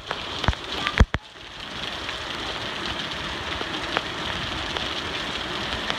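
Heavy rain falling, a steady dense hiss. A few sharp knocks in the first second, the loudest about a second in; the hiss drops out briefly just after it and comes back steady.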